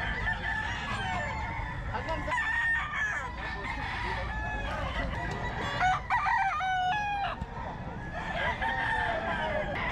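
Gamecocks crowing: one loud crow about six seconds in, lasting over a second, with other roosters crowing more faintly around it.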